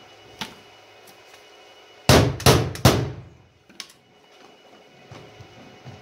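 Cordless impact driver hammering in three short loud bursts over about a second, driving a self-tapping screw into the sheet steel of a wood stove to pull its separated seam tight. A few light metallic clicks come before and after.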